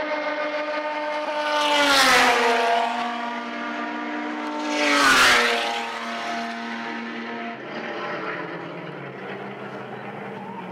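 TC 4000 race cars at racing speed going past close by, one after the other. Each brings a loud rush and an engine note that drops in pitch as it passes, about two seconds and five seconds in. After them, engines further round the track carry on more quietly.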